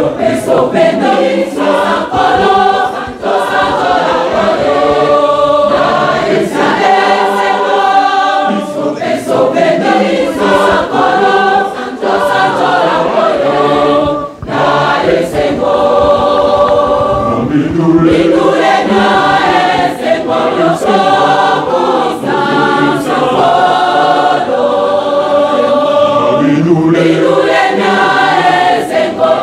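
A large church choir singing a hymn together in phrases, with a brief break about halfway through.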